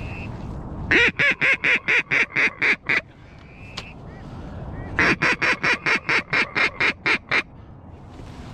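Duck quacking, loud and close: two fast series of evenly spaced quacks, about ten in the first and a dozen in the second, which starts about five seconds in. A short high whistle comes between them.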